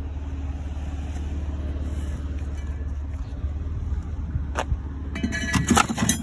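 Low steady rumble of an idling vehicle engine, then scrap metal knocking and clanking as pieces are loaded into a utility trailer: one knock about four and a half seconds in and a quick run of ringing clanks near the end.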